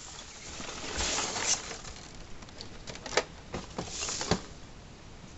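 Rustling of cardboard and packing material as a model box is opened, with a few sharp clicks and taps, two of them about a second apart near the end.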